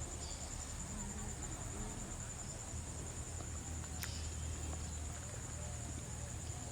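Insects trilling steadily in one continuous high, finely pulsing tone, over a low rumble, with a single sharp click about four seconds in.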